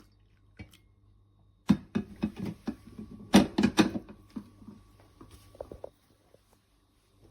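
A quick run of sharp clicks and knocks, as of hard objects being handled, mostly between about two and four seconds in, thinning out before the end.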